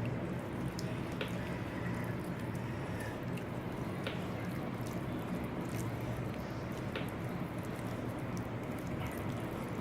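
Faint wet squishing of raw chicken pieces being handled in a yogurt-and-spice marinade and scored with cuts, with a few light clicks, over a steady low hum.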